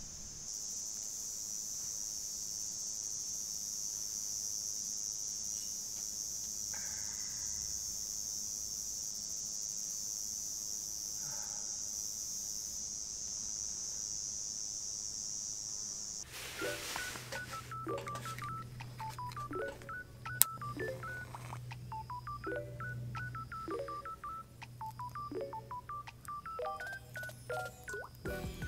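A steady high-pitched insect chorus. About sixteen seconds in, background music cuts in: a beeping electronic melody of short stepped notes over a low steady drone.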